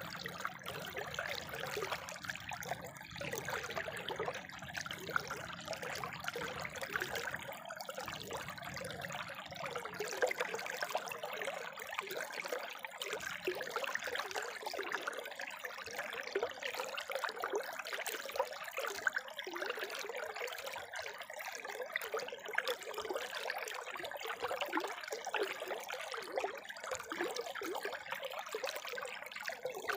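Spring water trickling and splashing steadily over rocks, a continuous bright babble.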